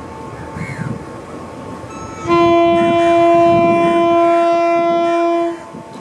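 Horn of a Canadian-built Sri Lanka Railways Class M4 diesel locomotive, sounding one long blast of about three seconds starting a little after two seconds in, over the low running of the approaching engine.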